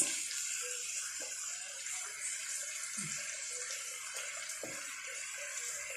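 Chicken and vegetables sizzling steadily in a hot wok over a gas flame while soy sauce is poured in, with a few faint knocks from stirring.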